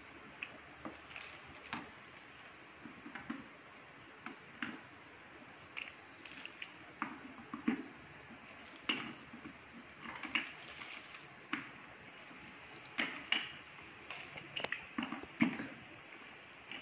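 Scattered, irregular plastic clicks and knocks as caster wheels are pressed into their sockets on the plastic base of a wet and dry vacuum cleaner drum, with handling of the drum between them.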